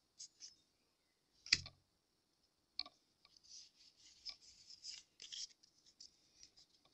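Pokémon trading cards being handled: a few soft clicks, a louder tap about one and a half seconds in, then scratchy rustling with small clicks from about three seconds on as the cards slide over one another.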